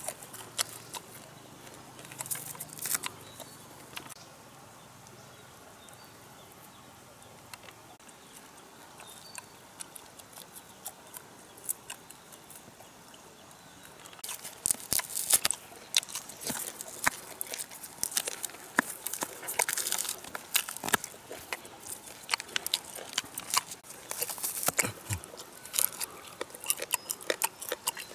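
Crunching, crackling and scraping as hands tear charred skin and meat from a fire-roasted beef head, a run of sharp clicks and crunches. It goes quieter for several seconds in the first half, then the crackling picks up again and stays busy.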